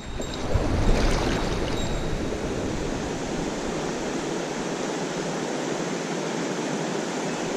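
Mountain stream water rushing steadily over rocks. A low rumble on the microphone runs through the first two seconds or so, then fades.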